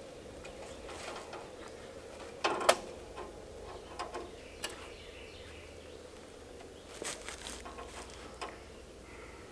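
Steel brace wire on a fence H-brace being twisted tight with a rebar stick: scattered metallic creaks and clicks of the wire and rebar. The loudest is a sharp snap about a quarter of the way in, with another cluster of clicks in the second half.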